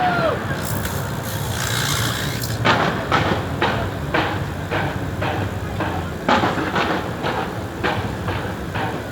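Fireworks going off. A high crackling hiss lasts for the first couple of seconds, then comes a steady run of sharp bangs, about two or three a second, over a low rumble.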